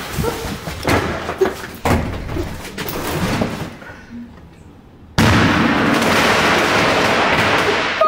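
A 5-inch firework mortar shell goes off inside a microwave oven: a sudden very loud blast about five seconds in, followed by loud continuous noise that does not die away. Before it there are scattered knocks and thumps.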